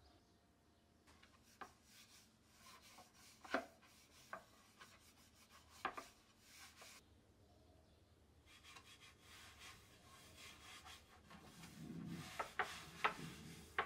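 A hand rubbing olive oil into wooden trays: quiet rubbing of palm on oiled wood, with a few sharp knocks as the trays are handled, several of them near the end.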